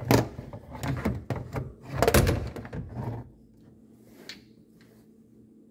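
A run of knocks, clatters and scraping for about three seconds, like hands or the phone bumping and rubbing on hard plastic and metal close to the microphone, then only a faint low hum.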